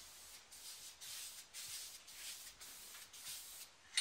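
Faint soft rustling and shuffling noise in short patches about half a second long with brief gaps between them.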